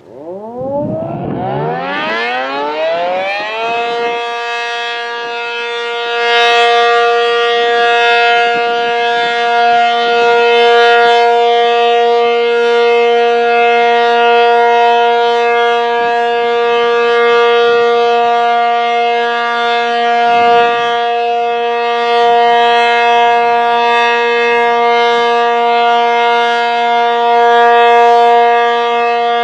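ACA Cyclone 125 electromechanical outdoor warning siren winding up, its pitch rising over the first four seconds, then holding one steady tone as a routine test signal. It grows louder about six seconds in and then swells gently in level.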